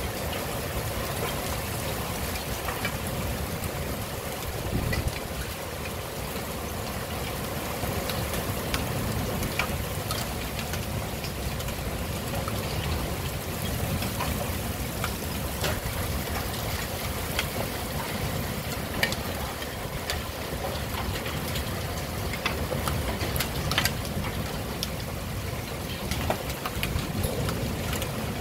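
Heavy rain falling in a windy thunderstorm, a steady rushing wash with a low rumble of wind, dotted throughout with sharp taps of drops striking nearby hard surfaces.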